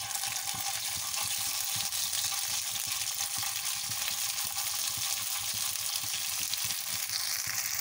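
Ground dried red chillies sizzling and crackling in hot oil in a frying pan while a plastic spatula stirs them, a steady dense hiss.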